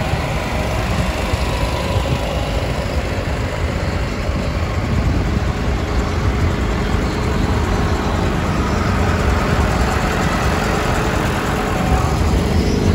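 Diesel engines of several farm tractors running as they drive slowly past, a steady low drone that grows a little louder near the end as one tractor passes close.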